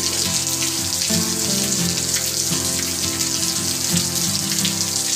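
Heavy rain pouring steadily on trees and a puddled road, a dense even hiss. Under it, background music plays in held notes that change every half second or so.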